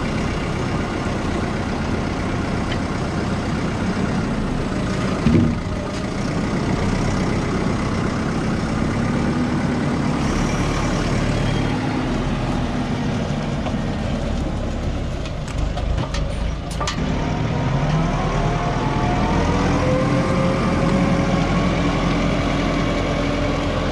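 Fendt 312 Vario tractor's diesel engine running under front-loader grapple work, its pitch rising and falling as the engine speed changes. A single thump comes about five seconds in, and a few sharp clicks around two-thirds of the way through.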